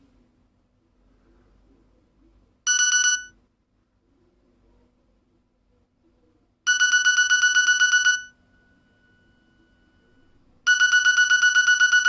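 Nokia mobile phone alarm tone: a fast, high electronic beeping at about ten beeps a second. It comes in three bursts about four seconds apart: a short first burst, then two longer ones of about a second and a half each.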